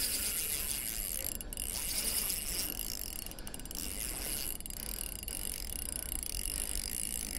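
Spinning reel clicking and running steadily while a heavy fish is played on the line, the reel's mechanism ratcheting under load.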